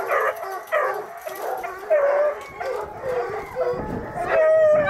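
A litter of three-month-old coonhound puppies barking and yipping together, excited and overlapping, with one longer howl near the end.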